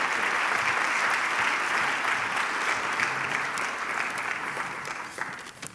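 Audience applauding steadily, tapering off and stopping near the end.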